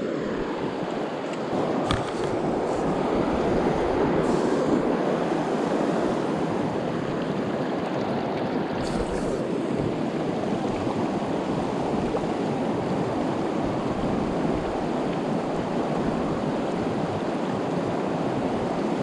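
Mountain river flowing with a steady rush of water, with a few faint clicks.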